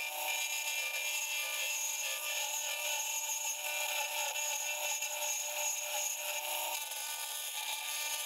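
Wood lathe running while a hand-held chisel shaves a spinning wooden pen blank, a steady cutting sound over the machine's even whine.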